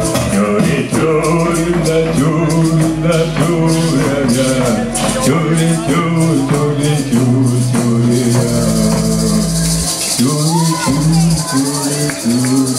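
Live folk-fusion band playing, with accordion and guitar holding melodic lines over rhythmic shaker-like percussion. About two-thirds of the way through, the regular percussion strokes stop and a steady high hiss takes over above the held notes.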